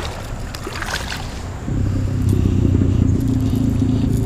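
A hooked smallmouth bass thrashing and splashing at the water's surface in the first second or so. Then, a little before halfway, a steady low engine drone comes in abruptly, louder than the splashing, and keeps going.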